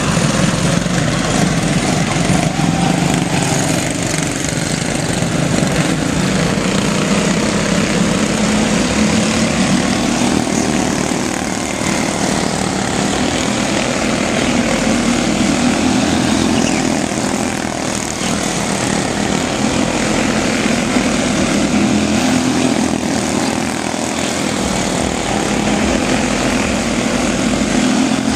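Several quarter midget race cars' small engines buzzing together as the pack laps a small oval, the level swelling and dipping slightly as the cars come around.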